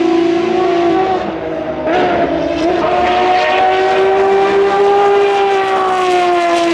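Ferrari FXX-K track cars' V12 engines held at high revs, a steady high-pitched note. After a short dip about two seconds in, the note comes back, rising a little and then falling near the end as a car passes.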